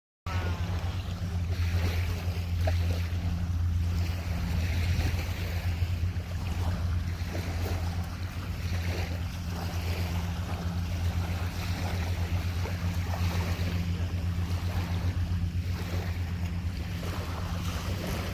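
A steady low motor drone under wind and water noise.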